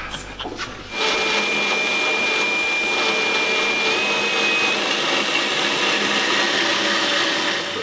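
Angle grinder running steadily, its high whine stepping up slightly in pitch about halfway through; it starts about a second in and cuts off just before the end.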